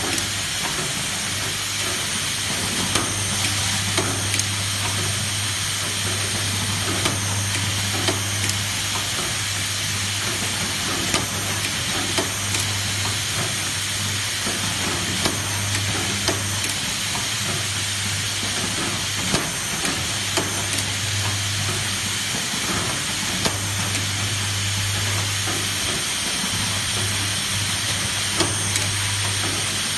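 Industrial circular-saw cutting machine running: a steady low motor hum under a constant hiss, with scattered short clicks and knocks. The hum drops out briefly a few times.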